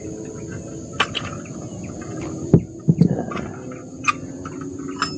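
A handful of sharp clicks and knocks as a butane gas canister is handled and fitted at a portable gas stove, over a steady high insect chirring.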